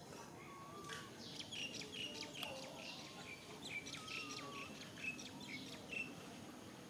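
Small birds chirping: many short, high chirps in quick series, with a couple of lower wavering whistles among them.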